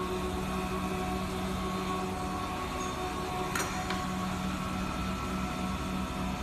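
DMG Mori CNC machining centre milling under flood coolant: a steady machine hum with a few held tones over a hiss. A sharp click comes about three and a half seconds in, with a fainter one just after.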